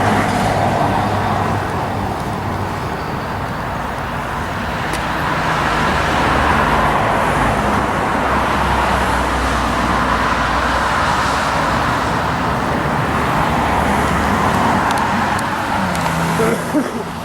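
Small propeller airplane droning steadily overhead, with a low engine hum beneath. It grows louder about five seconds in.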